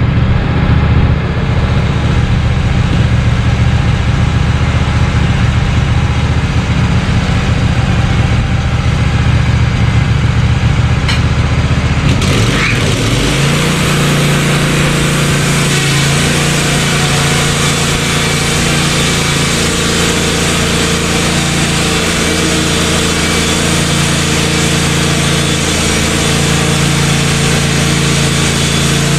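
Wood-Mizer LT15 portable sawmill's engine running at a low speed, then revving up about twelve seconds in and holding a steady higher speed, with more saw noise over it, as the mill makes a cut in a pine log.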